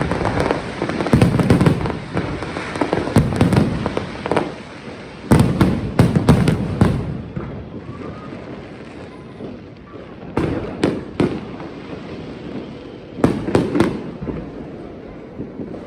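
Fireworks display: aerial shells bursting in clusters of sharp bangs, with quieter lulls between volleys, a longer one about eight to ten seconds in.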